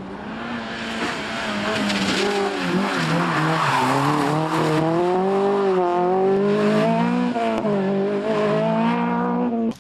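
Honda Civic VTi rally car's 1.6-litre VTEC four-cylinder engine revving hard, its pitch rising and falling as the car comes through a corner and pulls away, with tyre noise loudest about four seconds in as it passes. The sound cuts off suddenly near the end.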